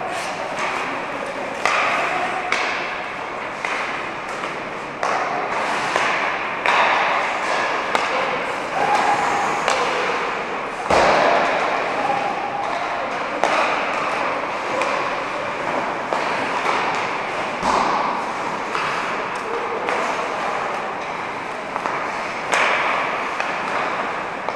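Ice hockey pucks being struck by sticks and knocking against the boards, a run of irregular sharp cracks and thuds that echo around the rink, loudest about eleven seconds in.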